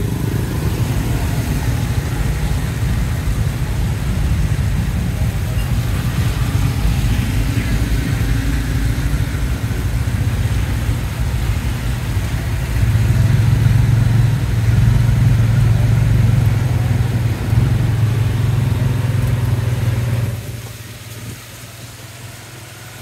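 Tuk-tuk's motorcycle engine running steadily, heard from the passenger seat, with passing traffic on a wet road. The engine hum grows louder about thirteen seconds in and falls away sharply about twenty seconds in.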